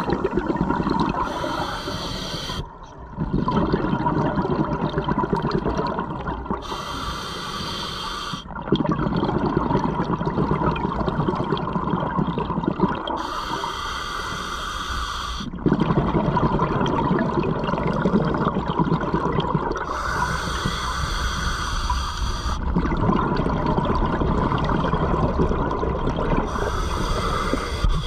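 Scuba diver breathing through a regulator underwater: a short hissing inhale, then a longer bubbling rumble of exhaled air, repeating about every five to six seconds for some five breaths.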